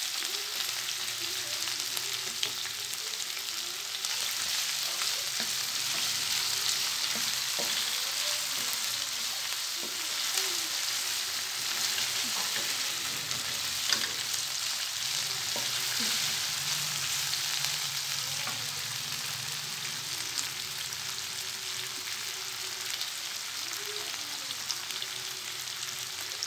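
Chicken and vegetables sizzling in a hot stir-fry wok as a wooden spatula turns them through freshly added mustard, with a steady frying hiss and occasional light knocks of the spatula against the pan.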